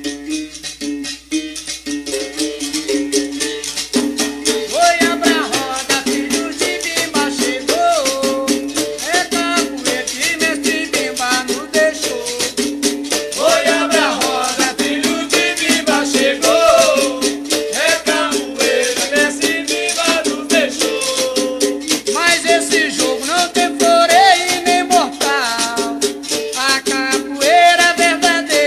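Capoeira regional song: a rattling shaker and a steady twanging string tone keep time, and a voice starts singing about four seconds in.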